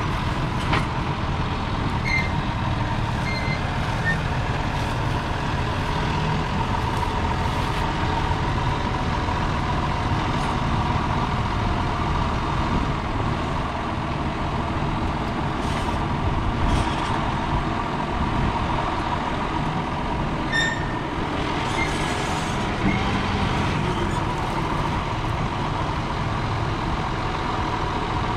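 John Deere 6155R tractor's 6.8-litre six-cylinder diesel engine running steadily, with a constant whine over the engine note and a few faint short chirps.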